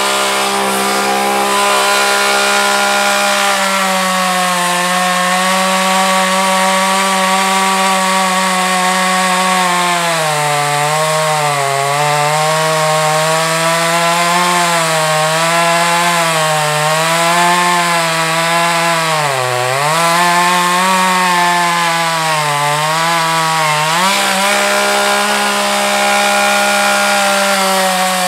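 Gas chainsaw bucking a felled log: the engine runs at a steady high pitch, then from about ten seconds in its pitch sags and wavers again and again as the chain is loaded in the cut, dipping deepest near the middle, before it rises back to a steady high pitch near the end.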